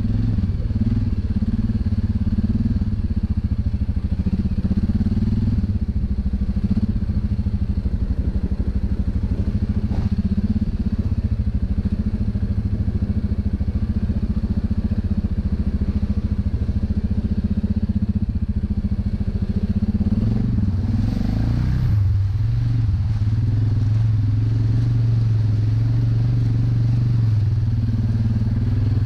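ATV engine running steadily while the quad is ridden along, its note shifting lower about three-quarters of the way through.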